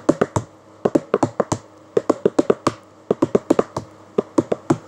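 Rhythmic hand percussion: sharp taps struck in quick groups of several beats, the pattern repeating about once a second, keeping time between sung lines.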